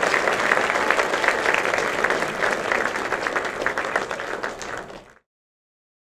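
Audience applauding, dense clapping that thins and fades, then the sound cuts off abruptly about five seconds in.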